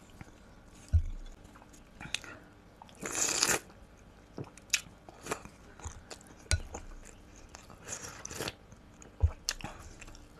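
A person eating cabbage soup from a wooden spoon at close range, with wet mouth clicks and chewing. Two short slurps come about three seconds in and about eight seconds in, along with a few dull knocks.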